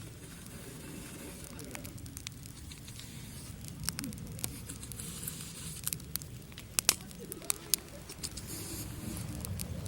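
Campfire burning in a fire pit, crackling with sharp pops every second or so over a steady low rumble.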